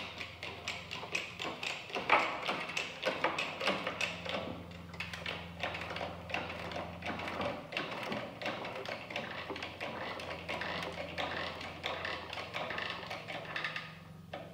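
Bearing press being worked to drive a steel truss plate into 2x4 framing: a rapid, uneven run of taps and clicks from the press as the plate is pressed home.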